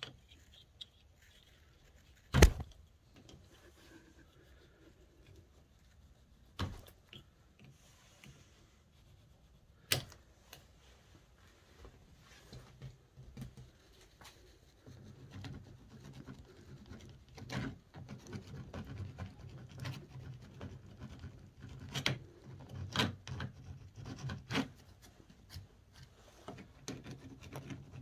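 Handling noise from prying a rubber handlebar grip off a scooter: sharp knocks and clicks of a thin metal tool against the grip and bar, the loudest about two seconds in. From about halfway on, steady rubbing and scraping as the tool is worked under the grip and the grip is twisted.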